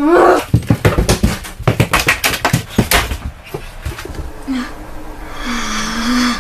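A brief child's shout, then rapid, irregular banging on a door, well over a dozen blows in about two and a half seconds.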